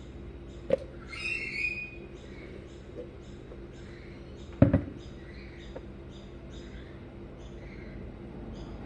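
Utensil knocks and clicks while a Nutella sandwich is being made: a few sharp knocks, the loudest about four and a half seconds in, with a short squeak near the start. Underneath are a faint steady hum and soft high chirps repeating about three times a second.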